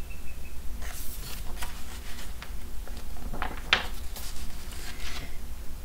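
Pages of a large picture book being turned by hand: a few short rustles and flaps of paper.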